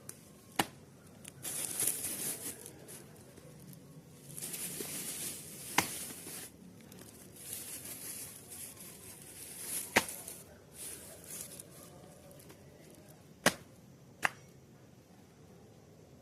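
Leafy herbs being handled: rustling and tearing of leaves and stems in several separate spells, with five sharp snaps spread through.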